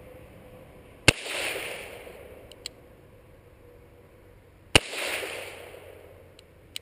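.38 Special revolver fired twice, the shots about three and a half seconds apart, each followed by about a second of echo, with a faint click about a second and a half after each shot.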